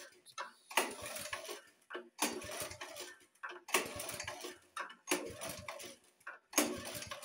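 Honda snowblower engine cranked by its recoil pull-starter five times, about a second and a half apart, each pull a short whirr of the cord and the engine turning over without firing. The key is off and the throttle on fast, so the pulls blow excess gasoline out of a flooded engine and help dry the plug.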